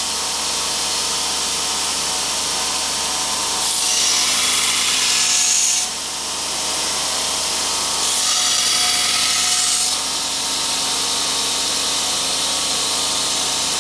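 Belt grinder running steadily, with a steel knife blade pressed against the abrasive belt in two grinding passes that add a harsh hiss, from about three and a half to six seconds in and again from eight to ten seconds in.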